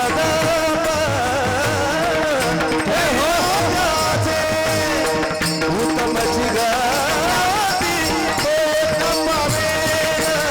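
Marathi Varkari kirtan music: a singer holds a long, ornamented melodic line over steady sustained accompanying notes and a regular drum beat.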